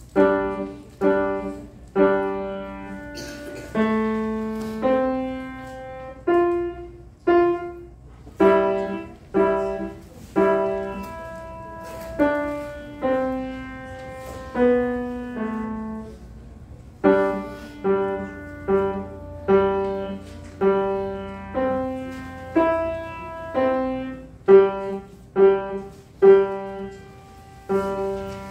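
Grand piano played solo: a simple piece in separate struck chords and notes at a steady pace of about one a second, each ringing and fading before the next.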